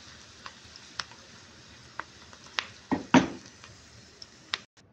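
Onion slices frying in hot oil in a pan: a steady sizzle with sharp pops and crackles, and a louder knock against the pan about three seconds in. The sound cuts off abruptly near the end.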